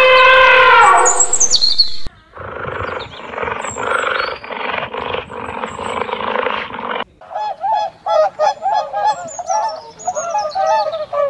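An elephant's trumpet ends with a falling pitch in the first two seconds. A leopard's rasping call follows, rough strokes repeating for about five seconds, then waterfowl honk over and over.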